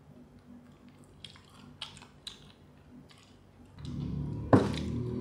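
Chewing and biting into crispy fried chicken, with short crunchy crackles. Near the end a louder low rustle sets in, and a sharp loud thump comes about four and a half seconds in.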